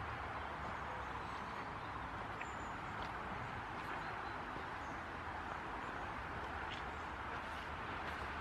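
Steady hum of road traffic from a nearby main road, with a few faint footsteps on loose stones.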